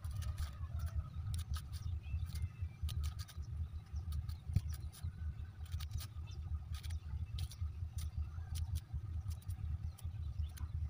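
Small knife slicing through a banana flower, giving irregular crisp cutting clicks several times a second, over a constant low rumble.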